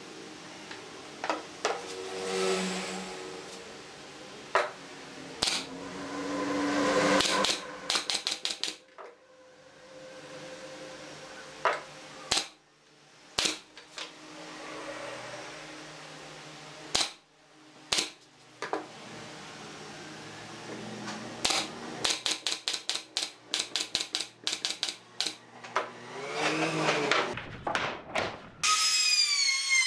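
Nail gun firing brads through pine slats into a wooden panel: single sharp shots and quick runs of several shots in a row, with knocks of wood being handled between them. Near the end a high whine begins.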